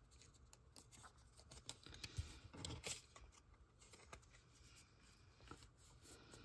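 Near silence with faint rustles and light taps, the strongest about two to three seconds in, as a Pokémon trading card is picked up and handled.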